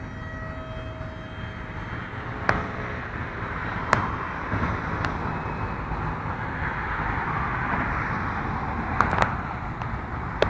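Radio-controlled model airplane flying over the field. Its motor gives a steady whine that fades out about a second in, and then a rushing propeller noise swells and eases off as the plane passes. A few sharp clicks cut through.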